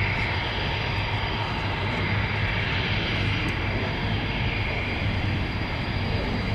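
Large aircraft's engines running in flight, a steady drone with a constant low hum underneath.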